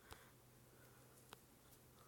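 Near silence: faint room tone with two faint clicks, one right at the start and one past the middle.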